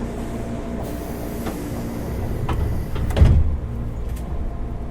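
Pneumatic sliding doors of a 205-series train closing: a hiss of air starts about a second in, a few clicks follow, and the doors shut with a heavy thump a little after three seconds, followed by a faint click. A steady low hum runs underneath.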